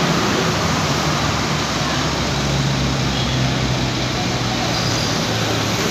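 Scania coach's diesel engine running at low speed as the bus is manoeuvred into a parking spot: a steady low hum over a constant background noise.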